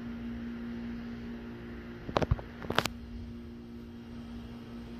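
A steady low hum, with a quick cluster of sharp clicks or knocks about two seconds in.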